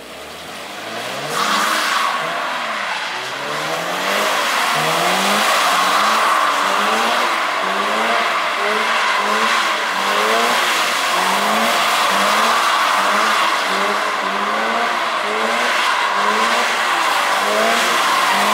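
Toyota GR86's 2.4-litre flat-four boxer engine revving hard as the car drifts in circles, its note rising and falling about once a second, over a steady hiss and squeal of spinning rear tyres on wet asphalt.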